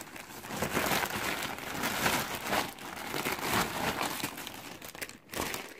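Plastic packaging crinkling and rustling as hands rummage through and pull items out of poly mailer bags and clear plastic wrappers, continuous with a short lull about five seconds in.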